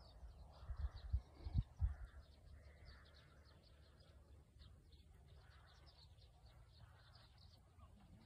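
Wind buffeting the microphone, in heavy gusts over the first two seconds and then as a steady low rumble. Faint rapid high chirping of a small bird runs underneath.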